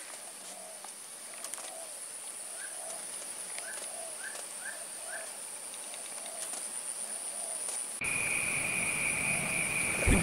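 Steady high-pitched insect drone with soft, evenly repeated calls and a short run of five quick chirps; about eight seconds in a second, lower insect drone comes in. Near the end, a short low splash as a snakehead strikes at the surface.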